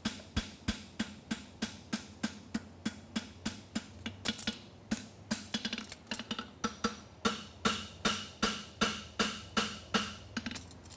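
Hammer blows on a red-hot steel horseshoe on an anvil, struck in a steady rhythm of about three a second, as the shoe is forged and its corner tightened up. From about halfway the strikes carry a clear metallic ring.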